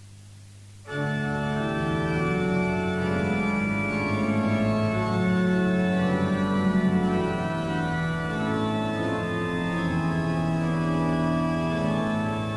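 Faint tape hiss and hum, then about a second in a church organ starts playing slow, sustained chords.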